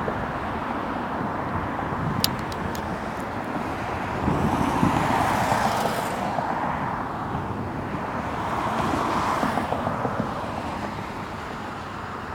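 Steady road traffic with two vehicles passing, one about four seconds in and another about eight seconds in. A few sharp clicks sound just after two seconds.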